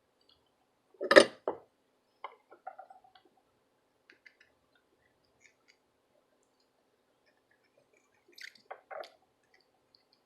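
Small tools or parts knocked and set down on a workbench: a loud clatter about a second in, light clicks after it, and two more knocks near the end.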